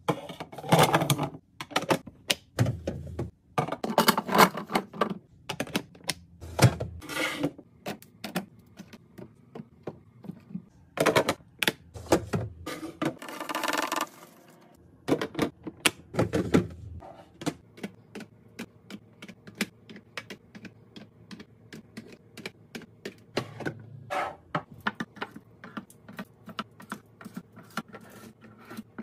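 Items being handled and set down while restocking a fridge: a run of sharp clicks and clacks with some dull thuds, a short hiss about halfway through, then rapid light tapping and clicking to the end.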